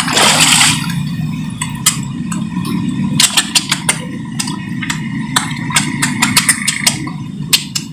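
Koi sucking and splashing at the water surface around a hand held in the pond: a short splash at the start, then many quick sharp smacks and clicks. A steady low engine-like hum runs underneath.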